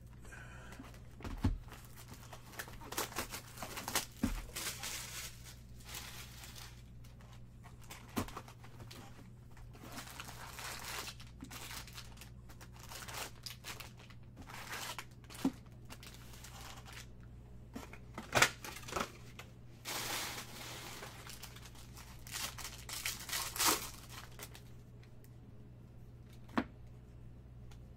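Packs of 2022 Bowman Draft baseball cards being torn open and their wrappers crinkled by hand, along with the cardboard box being opened and cards being handled and shuffled. It comes as irregular rustles and short rips.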